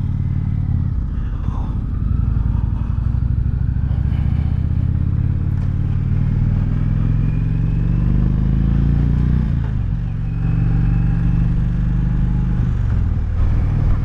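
V-twin cruiser motorcycle engine pulling away from a stop and accelerating, its note rising steadily for several seconds, then dropping sharply at a gear change about ten seconds in and running steadily after.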